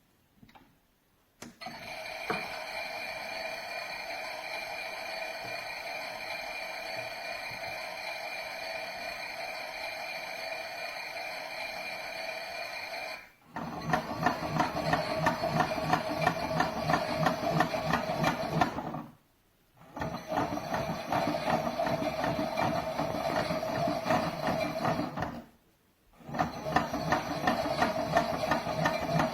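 Theo Klein Miele toy washing machine playing its recorded wash-cycle sound through its small speaker: a steady hum for about twelve seconds, then a fast rhythmic churning that breaks off briefly twice.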